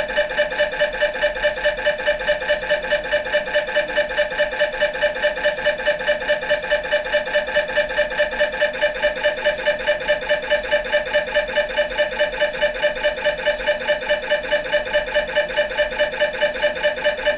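MRI scanner's gradient coils pulsing during a scan sequence: a loud buzzing tone that beats evenly about four times a second, unchanging throughout.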